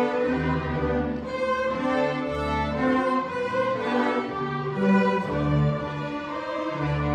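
Middle-school string orchestra playing a march: violins carry the tune over cellos and double basses, whose low notes change step by step.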